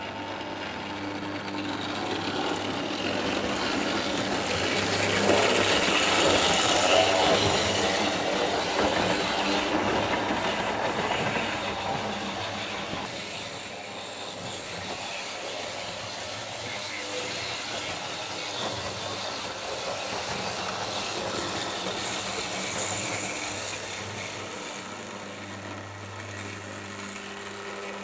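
A 00 gauge model train running over the layout's track: a continuous whirr of the small electric motor and the wheels on the rails over a steady hum. It gets louder about five to eight seconds in as the train passes close, fades, then swells slightly again near the end of the lap.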